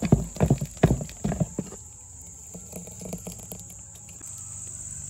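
Thick dosa batter being stirred in a bowl: about five wet slapping strokes in the first second and a half, then it stops. Crickets keep up a steady high shrill, and a low steady hum comes in near the end.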